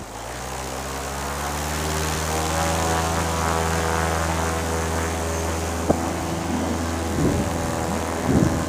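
Simonini two-stroke paramotor engine with propeller running at low throttle on the ground, its belt drive freshly retightened; the pitch climbs over the first couple of seconds and then holds steady. There is a single sharp click about six seconds in.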